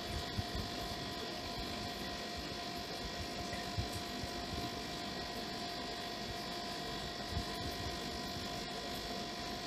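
Steady machine hum holding several fixed tones over a faint hiss, with a few soft low bumps from handling.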